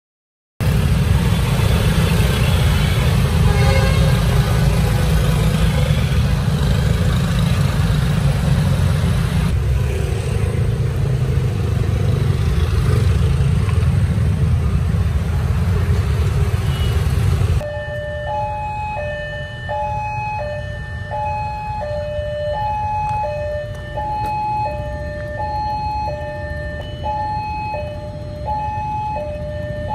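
Dense city street traffic, mostly motorcycles and cars running, a loud steady rumble. About 18 seconds in this gives way to a railway level-crossing warning alarm sounding two tones that alternate high and low in a steady repeating pattern, the signal that a train is approaching.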